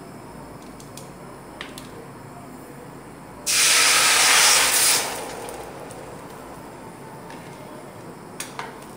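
Brown sauce poured into a hot metal wok hisses and sizzles loudly, starting suddenly about three and a half seconds in, lasting about a second and a half, then dying away.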